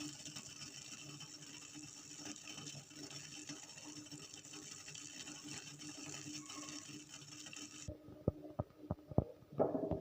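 A pot of guava-leaf decoction boiling on a gas stove: a faint, steady hiss with a low hum. About eight seconds in, the hiss cuts off and a spoon knocks and clicks against the pot several times as it is stirred.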